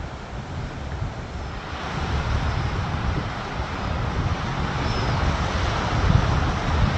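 Wind buffeting the phone's microphone: a gusty low rumble over a steady rushing hiss, growing louder about two seconds in.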